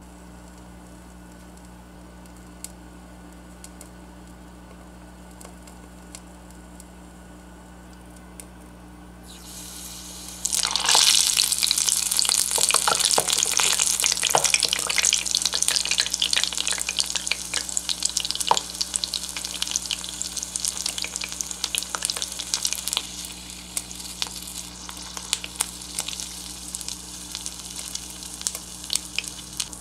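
Battered shrimp deep-frying in a miniature clay pot of hot oil. A faint low hum at first, then, about a third of the way in, a sudden dense crackling sizzle that slowly dies down.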